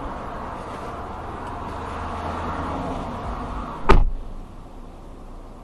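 Car noise picked up by a dashcam, a steady rushing hiss, broken about four seconds in by a single sharp thump, after which it is quieter.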